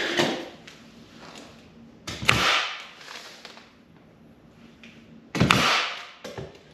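Pneumatic nail gun firing twice into a wooden filler strip, each shot a sharp crack followed by a short hiss of exhaust air.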